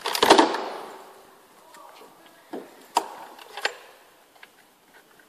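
Knocks and clatters from shower cabin parts being handled and fitted against the cabin during assembly. A loud clattering knock at the start trails off over about a second, then three sharper knocks come between about two and a half and four seconds in.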